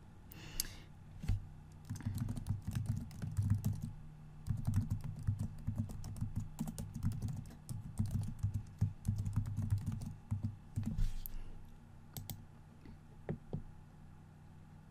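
Typing on a computer keyboard in quick runs of keystrokes, entering a username and password to log in. The typing runs from about two seconds in to about eleven seconds, and a few single clicks follow near the end.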